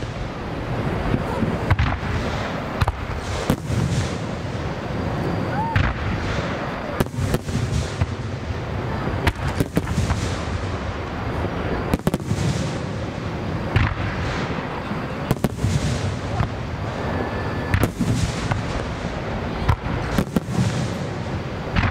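Aerial fireworks shells bursting in quick succession: many sharp bangs and cracks, some close together, over a continuous rumbling echo.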